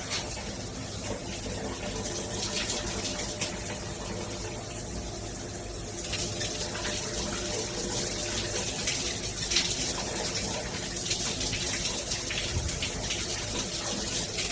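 Water running steadily from a shower or tap and splashing, a continuous even rush.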